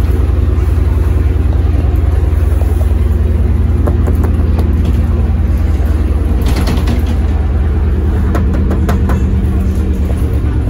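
LiAZ-677MB bus engine running steadily, with scattered clicks and rattles about halfway through.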